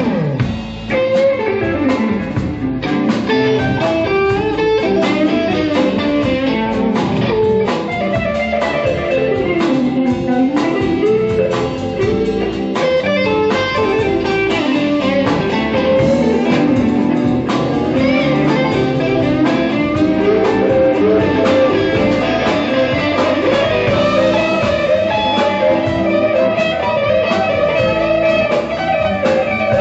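Live blues band playing, with electric guitar to the fore over a drum kit, along with keyboard and trumpet.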